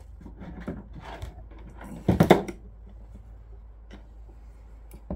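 Knocking and clattering of hand tools being rummaged through and picked up while fetching a wire stripper, with the loudest clatter about two seconds in.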